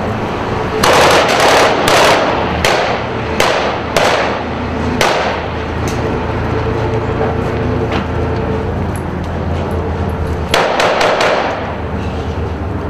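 Rifle gunfire in close urban combat. A burst comes about a second in, then single shots every half second to a second for the next four seconds, and a quick string of about four shots near the end, each shot trailing off.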